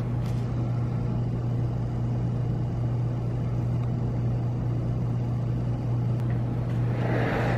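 A steady low hum with an even rushing noise over it, unchanging throughout; the rush grows a little louder about seven seconds in.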